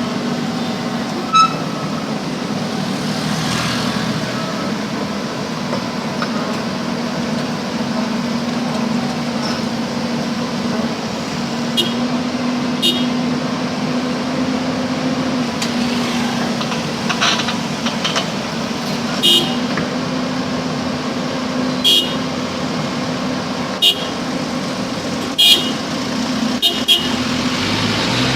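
Backhoe's diesel engine running steadily, with a run of short sharp knocks in the second half.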